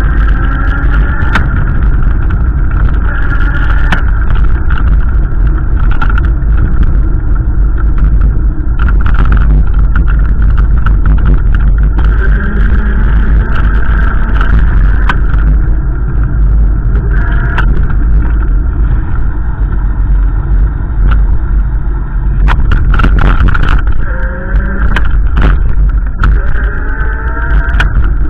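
A car driving, with a heavy steady low rumble. The engine's pitch climbs as it accelerates near the start and again in the last few seconds, and there are scattered sharp clicks.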